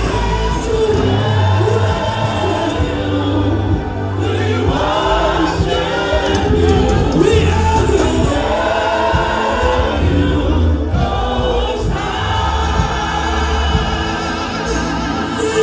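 Gospel worship music: a choir singing over a steady bass line.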